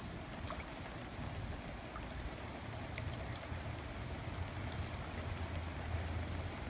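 Steady rain falling on a lake, an even hiss with scattered small ticks of drops, over a constant low rumble.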